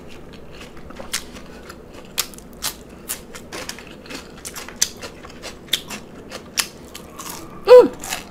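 Close-miked chewing of a lettuce-wrapped cheeseburger slider: irregular wet crunches and clicks of iceberg lettuce and food in the mouth, a few each second. Near the end comes a brief pitched vocal sound from the eater, falling in pitch.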